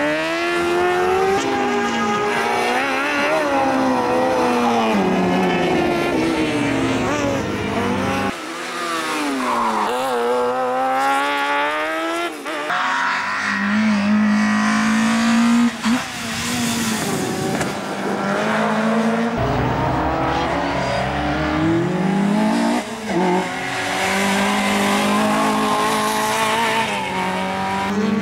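Competition engines of a buggy and rally cars driven hard on a tarmac circuit, the revs climbing and dropping again and again through gear changes and corners. The sound jumps abruptly a few times as it switches from one car to the next.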